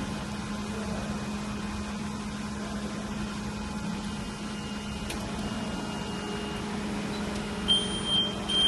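WDS-620 BGA rework station running with a steady hum from its hot-air heater and fan. High electronic beeps start near the end.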